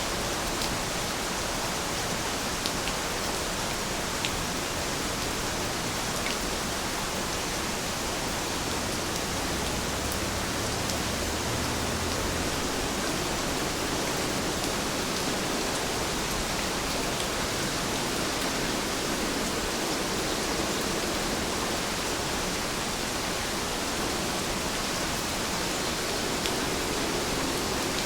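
Steady rainfall, an even hiss of many drops with a few faint separate drop ticks.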